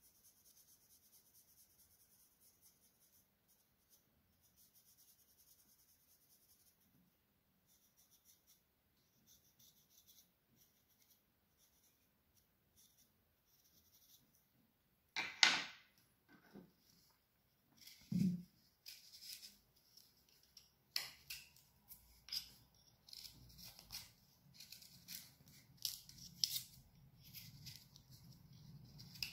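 A pencil scratching softly as it draws on bare wood, then a sharp knock and a duller thump as the tools are swapped, and then a carving knife slicing into the wood of a branch in short, repeated cuts.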